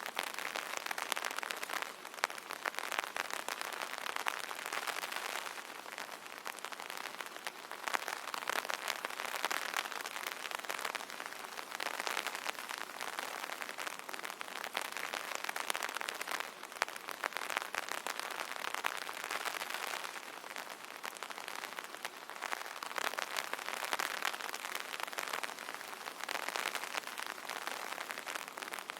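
Rain pattering on an umbrella canopy: a dense, steady patter of many small drop impacts that swells and eases every few seconds.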